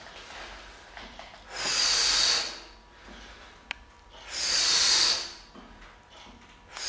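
A man's heavy breaths while doing wide-grip pull-ups: two long, breathy puffs about two and a half seconds apart, a third starting right at the end, in time with the reps. A single sharp click between the first two.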